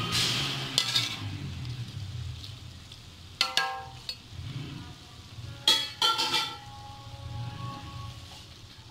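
A metal spoon scraping and clinking against a large aluminium cooking pot as chicken masala is spread over a layer of rice. There are several sharp, ringing clinks, the loudest a little past halfway, over a steady low hum.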